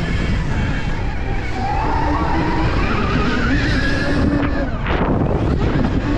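Stark Varg electric motocross bike's motor whining at speed, its pitch rising and falling as the throttle changes, over heavy wind noise on the microphone.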